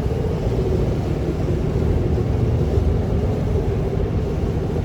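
Tour catamaran's engines running steadily under way, a low drone with a constant hum.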